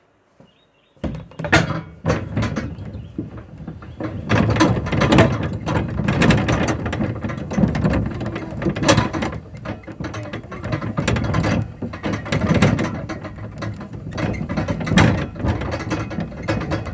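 Metal clanking and rattling of a trailer being handled and hooked up: a dense run of irregular knocks and clicks starting about a second in.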